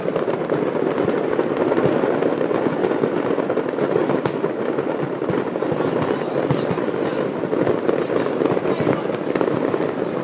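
Fireworks going off in a dense, unbroken crackle of countless small bangs as a fireworks factory's stock explodes.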